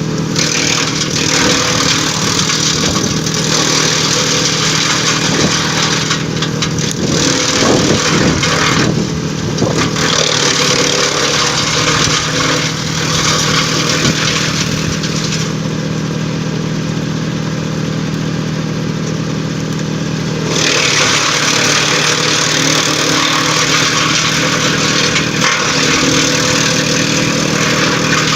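DURKYA 600T heavy-duty shredder running with a steady hum while its blades chip drumstick tree branches in a loud, dense grinding. The chipping noise drops out for about five seconds past the middle, leaving the machine running on its own, then picks up again.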